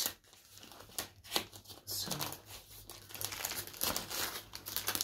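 Plastic postal mailer bag crinkling and rustling as it is handled, with a few sharper crackles.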